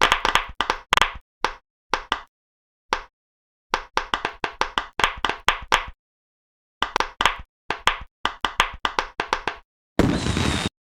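Pop-it fidget bubbles popping in quick runs of sharp pops, several a second, in groups broken by short silences. Near the end a short hissing whoosh.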